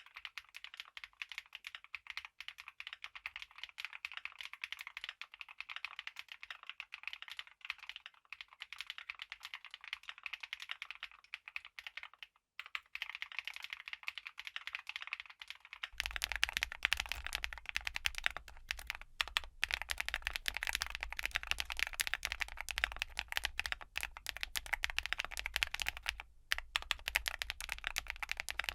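Continuous fast typing on a QwertyKeys QK75 gasket-mount mechanical keyboard with a polycarbonate case, GEON Black linear switches and Domikey vintage keycaps, a clacky keystroke sound. Partway through, the sound turns fuller and louder with a low hum beneath the keystrokes.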